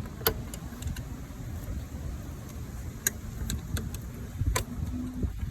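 A hand tool working at a nail stuck in a car tire's tread, giving a handful of sharp, scattered clicks as it grips and tugs at the tight nail, over a low steady rumble.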